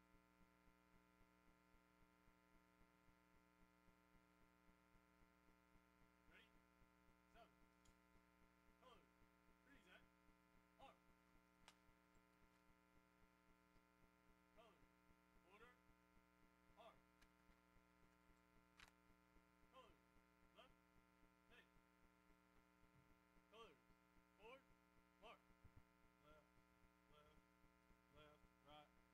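Near silence with a steady electrical mains hum and faint scattered clicks and short chirps from about six seconds in.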